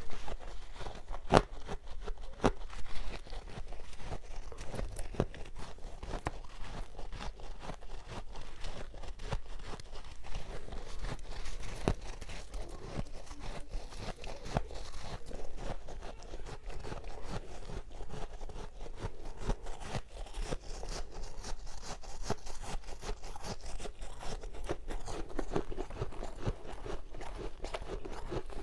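Freezer frost and ice being bitten and chewed close to the microphone: a continuous, dense crunching with a few sharper cracks in the first few seconds.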